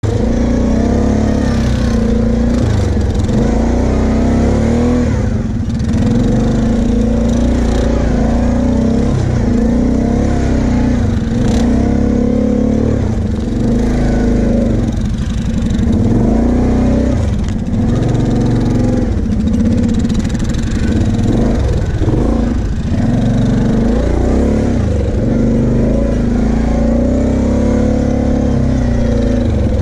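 Kawasaki KFX 700 V-Force quad's V-twin engine running and revving, heard from on board. Its pitch rises and falls repeatedly as the throttle opens and closes over the sand track.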